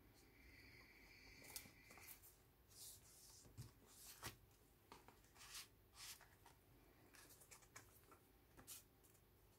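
Faint rustling and light taps of thick, layered paper pages being turned and handled in a handmade junk journal.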